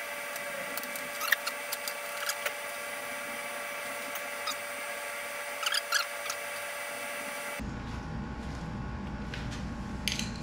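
Sparse light clicks and taps of small parts being handled while motorcycle body panels are loosened and a push-pin fastener is worked free. They sit over a steady high-pitched whine that cuts off suddenly about three-quarters of the way through, leaving a low hum.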